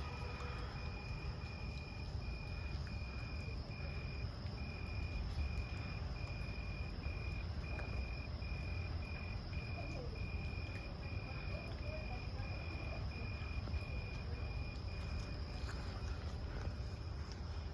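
A cricket chirping in an even rhythm, about two chirps a second, which stops near the end, with a steady high insect trill behind it over a low background rumble.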